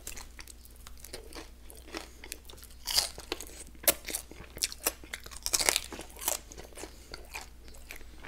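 Close-miked chewing and crunching on chicken wings coated in peanut butter and jam, with scattered sharp crunches, the loudest about three and four seconds in.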